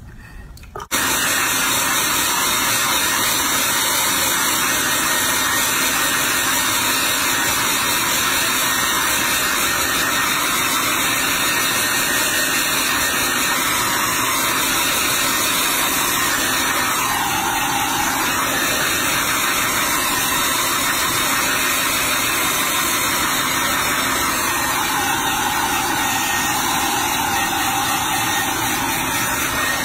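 Handheld hair dryer switched on about a second in, then blowing steadily, with its tone shifting slightly a couple of times.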